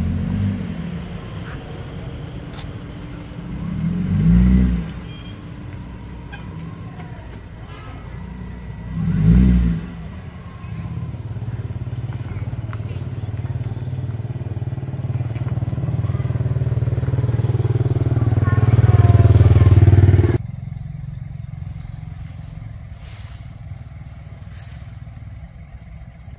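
Toyota Camry 3.0-litre V6 engine in a Bugatti La Voiture Noire replica, revved through its exhaust: three short blips a few seconds apart, then a long rev held for about ten seconds, slowly climbing and getting louder, which stops abruptly.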